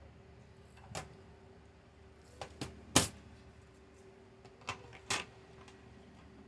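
Scattered light clicks and taps of stone beads and small beading tools handled on a work surface, about six in all, the sharpest about halfway through, over a faint steady hum.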